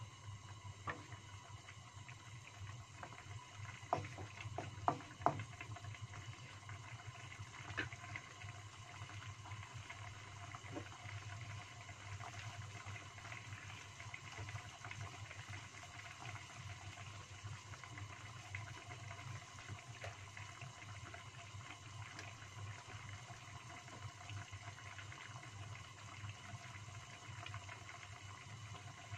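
Chicken stewing in spiced broth in a wok, bubbling at a steady simmer with a low hum underneath. A few sharp clicks come about four to five seconds in.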